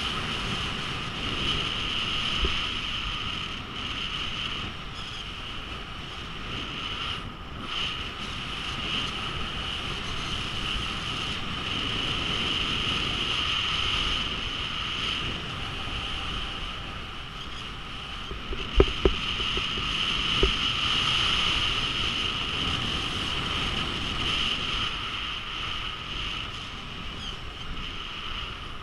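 Skis sliding and carving over groomed snow, a continuous rushing hiss with wind on the microphone, and a couple of sharp knocks about two-thirds of the way through.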